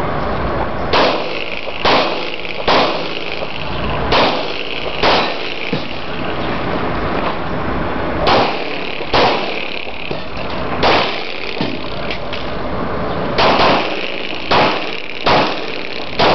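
Handgun shots fired one at a time, about fifteen in all, mostly a second or so apart, with two almost together near the end, as a shooter works through a practical pistol course of fire.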